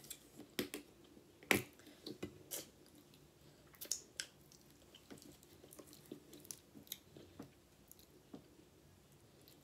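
Faint, scattered clicks and wet mouth smacks: a plastic squeeze bottle of bacon ranch dressing being handled with its flip cap open, and fingers being licked.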